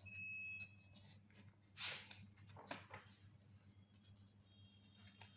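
Faint rustle of book pages being turned by hand, with a short steady electronic beep of under a second at the start.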